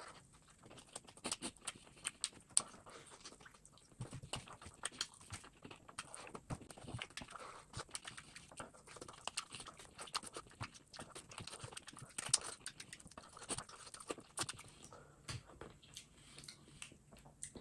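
Close-miked wet chewing and lip-smacking of a man eating duck curry by hand, biting meat off the bone: a dense run of short clicks and smacks that thins out near the end.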